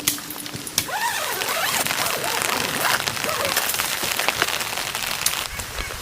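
Steady rain falling, with many sharp drop hits on a surface throughout.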